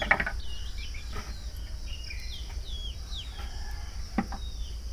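Birds chirping in a run of short, falling calls through the first three and a half seconds, over a steady high hiss. Two brief knocks come near the start and about four seconds in.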